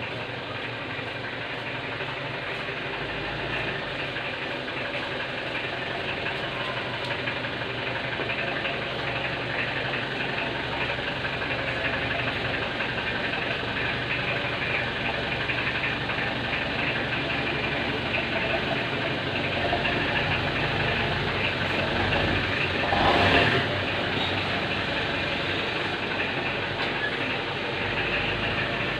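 Mitsubishi L300 engine running with a loud, rapid knocking. There is a brief louder swell about three-quarters of the way through.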